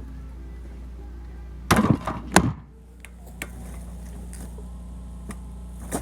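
A quick run of heavy wooden knocks about two seconds in, firewood pieces thudding as they fall or are knocked over, over a steady low hum.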